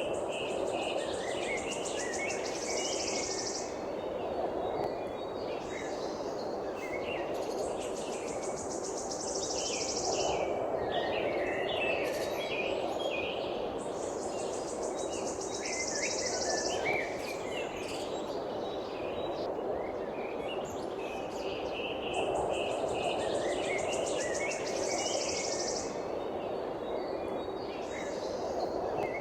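Birds chirping and twittering with many short calls, mixed with high insect trills that come and go in stretches of a few seconds, over a steady background hiss.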